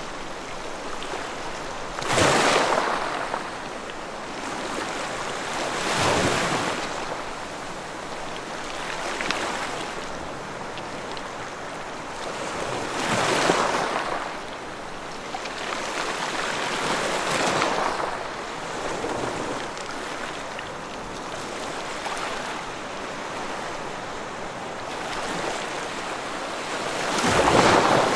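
Ocean surf: a steady wash of waves breaking on a shore. It swells as each wave crashes every few seconds and then recedes, with one of the loudest crashes near the end.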